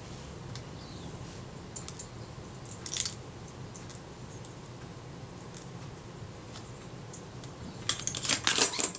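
Small metal camera parts, screws and rings, clinking against each other in a plastic parts dish as they are handled. A few light clicks about three seconds in, and a quick run of clinks near the end.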